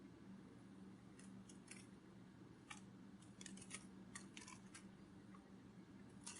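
Near silence: a faint steady low hum with a scattering of soft, irregular ticks, bunched together between about three and five seconds in.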